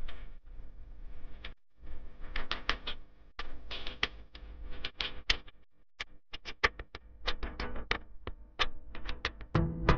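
Rapid, irregular clicking of many camera shutters firing, some in quick pairs, as from a pack of press photographers.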